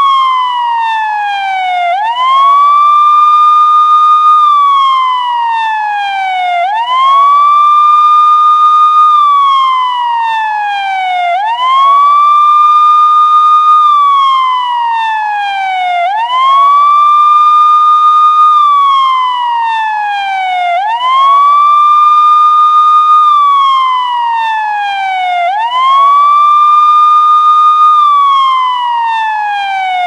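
Police siren sounding a continuous wail. Each cycle rises quickly, holds its high note for about two seconds, then falls slowly, repeating roughly every four and a half seconds.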